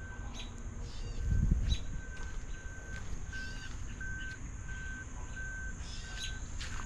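Birds chirping, one repeating a short single-pitched note about twice a second, over a steady high hiss; a brief low rumble comes about a second in.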